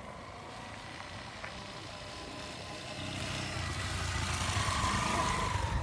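Dual-sport motorcycle approaching at road speed, its engine growing steadily louder as it nears.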